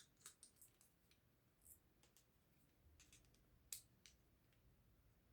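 Faint, scattered clicks of a Phillips screwdriver working small screws out of the front of a cinema projector lens, against near silence.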